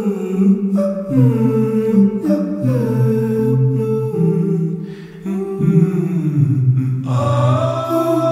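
Slow music of layered humming voices holding sustained chords that change about every second. The sound grows fuller near the end.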